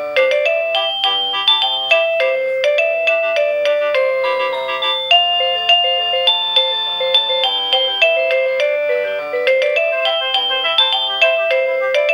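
Avantek D-3B wireless doorbell receiver playing one of its electronic chime melodies: a quick tune of short, bright notes that runs on without a break.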